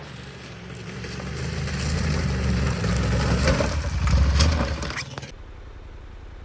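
Motorcycle engine running, growing louder over the first couple of seconds, then dropping away abruptly about five seconds in.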